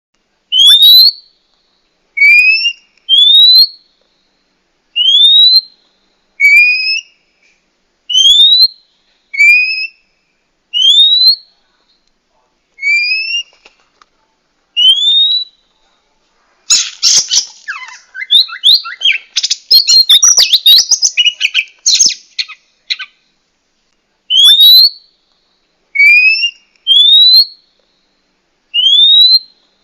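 Female Oriental magpie-robin (kacer) calling: a series of short upward-sweeping whistles, some in two-note pairs, repeated about every second. In the middle comes a burst of several seconds of rapid, scratchy chattering. These are female calls of the kind used to stir a male magpie-robin into song and breeding condition.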